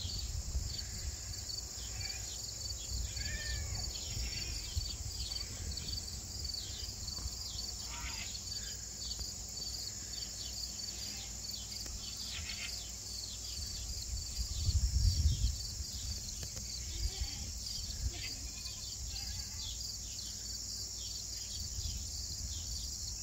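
Steady high chorus of crickets and other insects, with many short repeated chirps. A low rumble runs underneath, swelling briefly about two-thirds of the way through.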